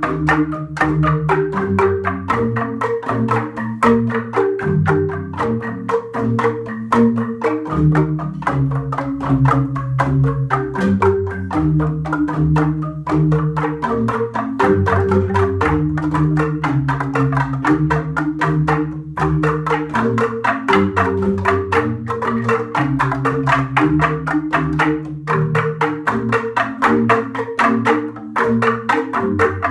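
Gamelan jegog ensemble playing: Balinese bamboo-tube xylophones struck with mallets in fast, dense interlocking patterns over deep sustained bass notes that shift every second or so.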